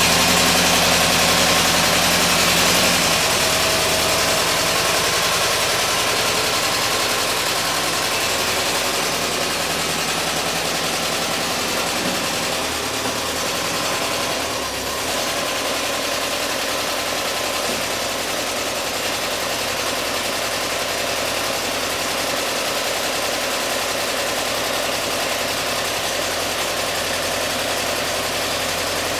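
Volkswagen Thing's air-cooled flat-four engine idling steadily, a little louder in the first few seconds.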